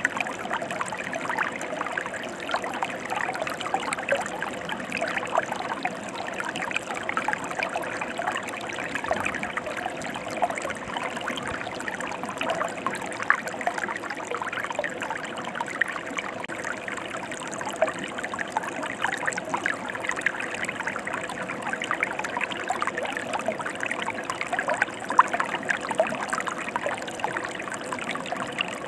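Mountain river flowing over rocks: a steady rush of running water, thick with small splashes and gurgles.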